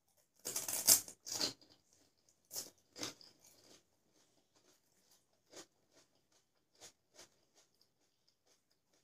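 Crisp golgappa (pani puri) shells crunching as they are bitten and chewed, loudest in a dense burst in the first second and a half. Softer scattered crunches and small clicks follow.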